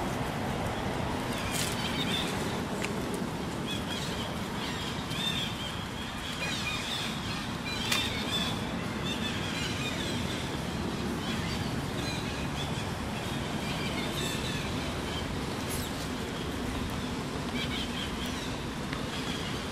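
Steady outdoor background noise with scattered short, high chirps and a sharp knock about eight seconds in.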